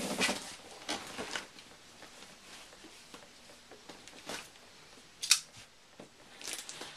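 Large cardboard box being moved and handled: scattered rustles and knocks, with one sharp click about five seconds in.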